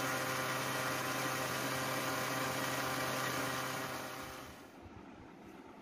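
Electric blender running at a steady speed, blending oats, nuts, dates and water into a smoothie, with a steady low hum under its whirr. The sound falls away about four and a half seconds in.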